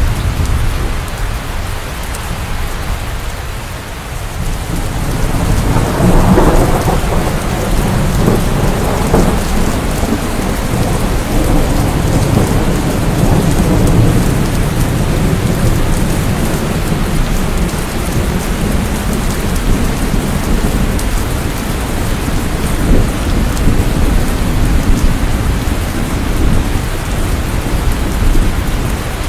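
Steady heavy rain with rolling thunder. A low rumble dies away early on, and a new peal builds about six seconds in, crackling at first, then rumbling on for several seconds before the rain carries on alone.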